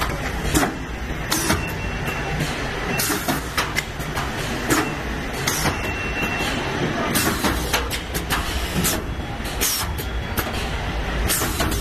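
Vertical sachet packing machine for oil and sauce running, with a steady mechanical clatter broken by frequent sharp clicks and short bursts of noise at an uneven pace.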